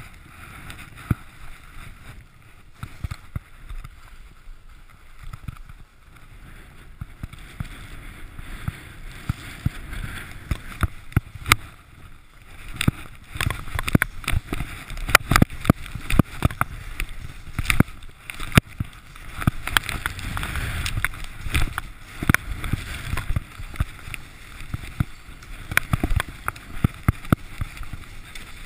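Skis sliding and scraping through snow on a fast downhill run, a steady rushing noise with many sharp knocks and clicks. It gets louder and busier from about halfway through.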